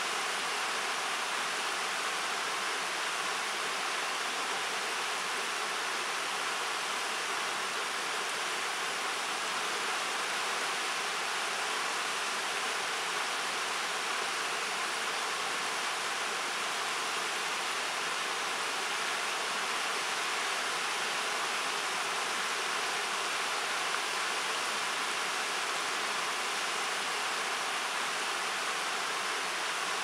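Shallow river rushing over a rocky riffle: a steady, even hiss of running water.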